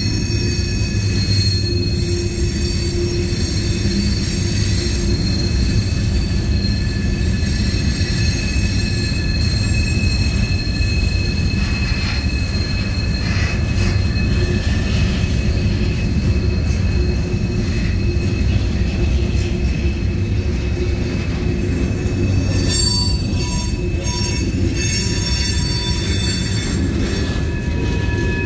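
Freight cars (covered hoppers, then tank cars) rolling past close by: a steady heavy rumble of steel wheels on rail, with a thin high steady squeal from the wheels riding over it. Bursts of clatter come about halfway through and again near the end.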